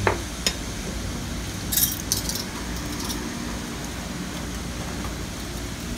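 Metal spoon clinking against a small bowl: a single tick about half a second in, then a short run of light clinks about two seconds in, over a steady low hum.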